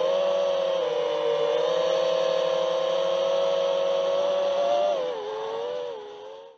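Model aircraft's motor and propeller, recorded by the camera on board: a steady whine with small dips in pitch. About five seconds in it drops in pitch and gets quieter, then fades out.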